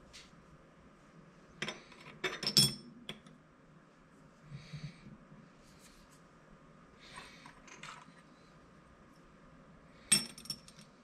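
Small metal parts of a K24 turbocharger clinking and tapping as they are fitted by hand onto the center housing, in a few quick clusters: the loudest about two and a half seconds in and another near the end. Softer rustling between them.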